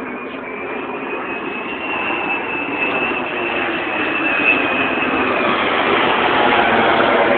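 Jet airliner passing low overhead: its engine noise grows steadily louder, with a high whine over it that fades about two-thirds of the way through.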